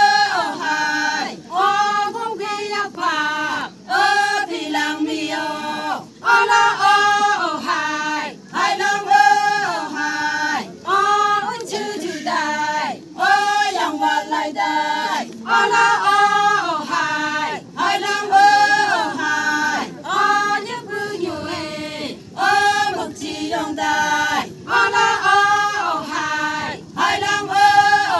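A group of women singing together without accompaniment, in unison, one short phrase repeated over and over with brief breaks between.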